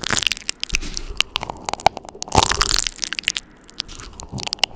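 Adhesive tape being stuck onto and ripped off a microphone, close up: fast, rough sticky crackles and pops with a longer rip a little past two seconds in.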